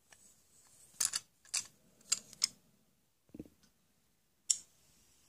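Black & Decker toy tool set's hard plastic pieces clicking and clacking as they are handled and set down: several sharp clicks in the first half, a dull knock about three and a half seconds in, then one more click.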